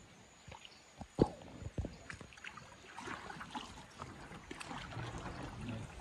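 Water trickling and lapping around a small boat, with a few sharp knocks, the loudest about a second in.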